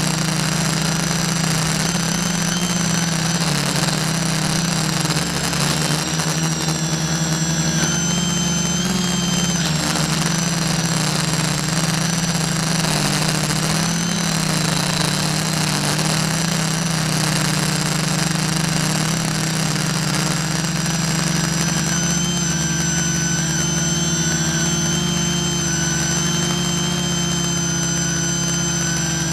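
Small multirotor drone's electric motors and propellers whirring steadily, with a high whine that steps up and down in pitch now and then as the throttle changes.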